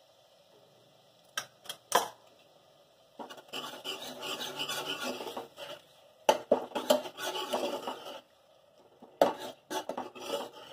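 A long steel spoon scraping and stirring thick masala around the bottom of a stainless steel pressure cooker, in two long stretches. A few sharp metal clinks come before the stirring, and more come near the end.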